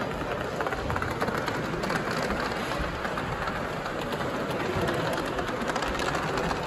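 Gauge 1 live steam model locomotive running with its train: a steady hiss of steam exhaust with fine rapid clatter from the wheels on the track.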